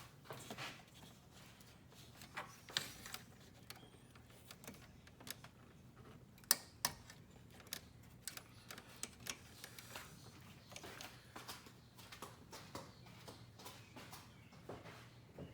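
Irregular small clicks and knocks of hands working on plastic trim and clips in the engine bay, the loudest about six seconds in, over a faint steady low hum.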